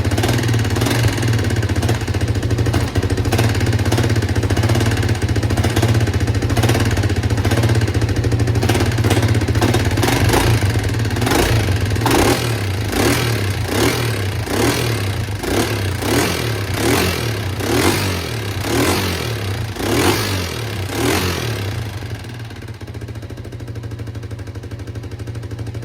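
1987 Kawasaki Mojave 250 quad's single-cylinder four-stroke engine running just after a cold, choked kick start. Through the middle it revs up and falls back about once a second, then settles to a quieter steady idle near the end.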